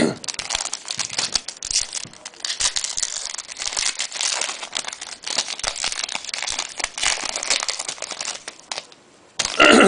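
A trading-card pack wrapper being torn open and crinkled by hand: a dense run of irregular crackles that stops about nine seconds in.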